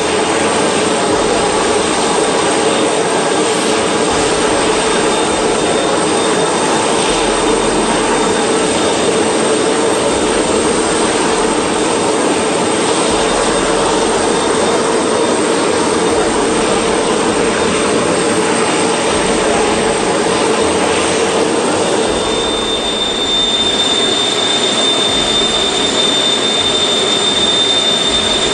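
A loud, steady droning rumble from the sky, with a thin high whine on top that grows stronger about two-thirds of the way in. The uploader takes this mystery sky sound most likely for a low-flying Antonov An-12 turboprop.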